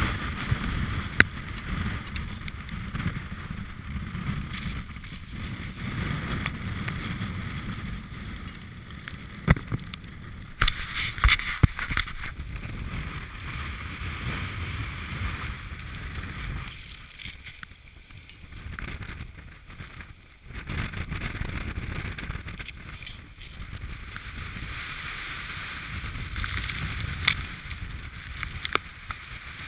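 Strong gusting wind buffeting the microphone of a body-worn camera as a rough low rumble, rising and falling with the gusts and easing in a couple of brief lulls about two-thirds of the way through. A few sharp knocks are scattered across it.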